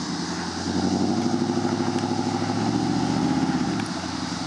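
Straight-piped exhaust of a Chevrolet Silverado 2500HD pickup pulling hard under throttle with a deep, steady drone that swells in about half a second in. The sound drops off sharply near the end as the throttle is let off.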